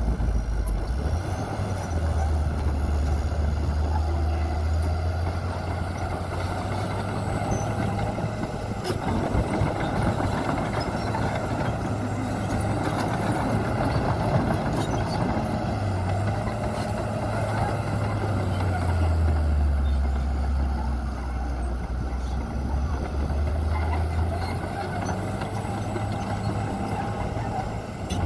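Heavy diesel earthmoving machinery running: dump truck and bulldozer engines with a steady low drone that swells and eases every several seconds, over a mechanical clatter.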